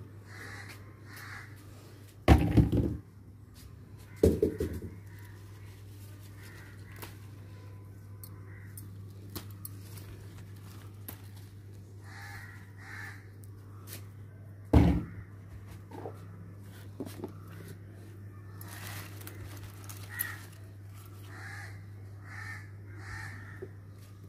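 Crows cawing several times, in short runs of two or three calls. Three loud thumps break in, about two, four and fifteen seconds in.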